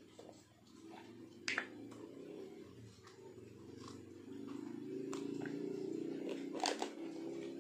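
Small plastic salt container being handled, with a sharp click of its lid about a second and a half in and a double click near the end. Under the clicks runs a low steady hum that grows louder about halfway through.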